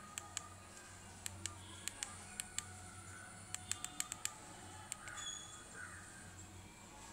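Faint, sharp clicks of a Kechaoda K112 feature phone's keypad as a thumb presses the navigation and OK keys, about a dozen presses at an uneven pace, with a quick run of them about halfway through.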